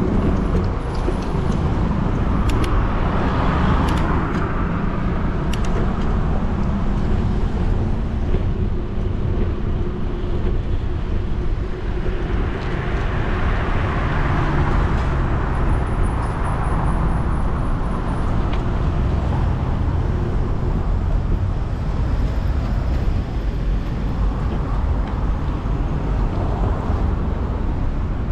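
Steady wind rush on a bicycle-mounted action camera's microphone during a ride, with road traffic swelling and fading a few times as cars pass.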